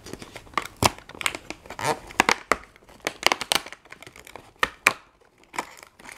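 A cardboard advent calendar door pried and torn open by hand along its perforation: a run of irregular crackles, small rips and rustles of the card.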